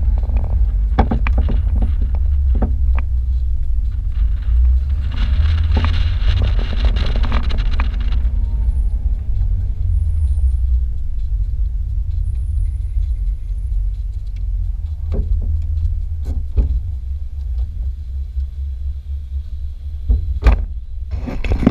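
Wind buffeting the microphone of an open-top convertible on the move, with heavy low road and engine rumble. There is a louder, hissier gust a few seconds in. The rumble eases off toward the end as the car slows, and a few sharp knocks come near the end.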